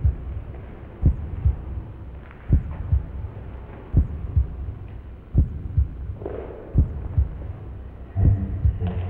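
Slow, steady heartbeat rhythm of low double thumps, six pairs about one and a half seconds apart, each pair a stronger thump followed by a softer one.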